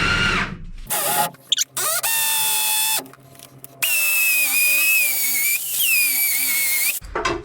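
A dog whining in a series of high-pitched, drawn-out cries that waver and bend in pitch, after a short burst from a power drill at the start.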